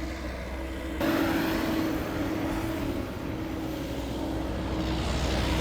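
Caterpillar excavator's diesel engine running hard, with a steady hum, as the machine swings round fast; it gets louder about a second in.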